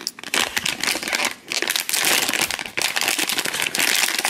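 Foil blind-bag wrapper crinkling and crackling as hands work it open, with a brief lull about a second and a half in.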